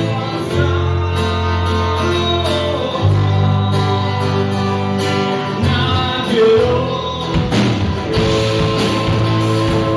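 Rock band playing a song: guitars, acoustic guitar among them, over sustained bass notes, with drum strikes filling in from about seven seconds in.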